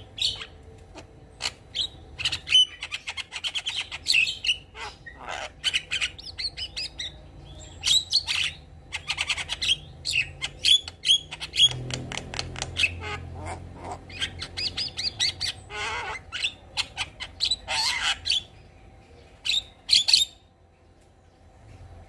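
Javan myna singing a long, varied run of rapid clicks and chattering notes mixed with short whistled notes, falling quiet near the end.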